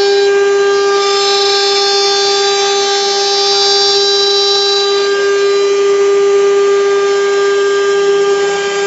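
CNC router spindle whining at a steady high pitch while its bit cuts into a block of wood.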